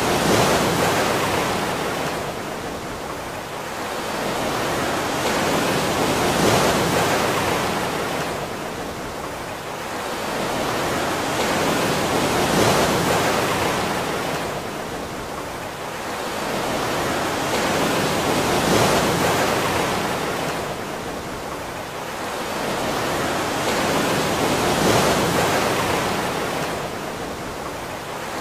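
Rushing water like surf, a steady noise that swells and fades evenly about every six seconds.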